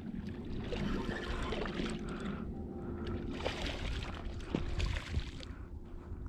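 Hooked striped bass thrashing and splashing at the water's surface close to the bank as it fights the line, in two spells of splashing.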